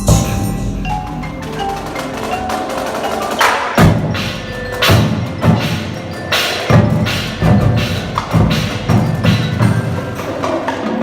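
Indoor percussion ensemble playing: mallet keyboards such as marimba ring out sustained notes, then loud accented percussion hits come in clusters from about three and a half seconds in.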